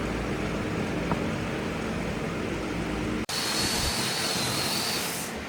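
A workshop power tool running steadily. About three seconds in the sound cuts off suddenly and gives way to a brighter hiss with a high, slightly wavering whine, which stops just before the end.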